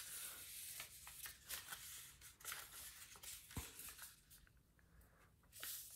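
Faint rustling and crinkling of a sheet of origami paper being folded down and creased flat by hand, with scattered soft crisp ticks as the paper is pressed.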